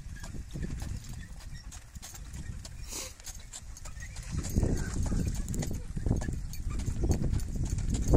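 Hoofbeats of a bay horse in harness on a sand arena, pulling a four-wheeled driving carriage, with a low rumble underneath. The sound grows louder about four and a half seconds in.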